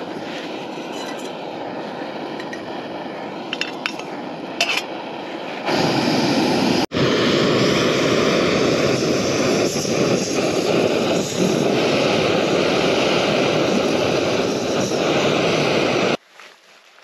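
Small backpacking gas stove on an MSR IsoPro canister, burning with a steady hiss under a metal pot to heat water. A few light metal clinks come a few seconds in. The hiss gets louder about six seconds in and cuts off suddenly near the end.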